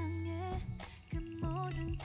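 Background music: a melody with bending pitched lines over held bass notes, with regular drum hits.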